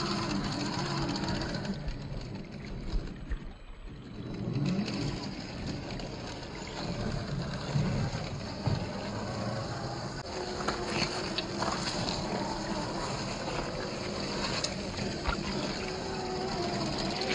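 Axial SCX10 III RC crawler's 540-size 35-turn brushed motor and gearbox whirring as it crawls over rock. The pitch rises and falls with the throttle and drops away briefly a few seconds in. Scattered sharp clicks come in the second half.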